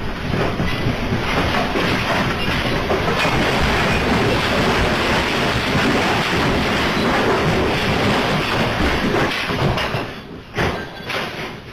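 Earthquake shaking: a loud, steady rumbling and rattling of a shaken building and its contents, easing off about ten seconds in.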